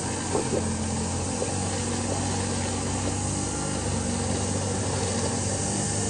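An engine running steadily, a constant low hum, with a brief knock about half a second in.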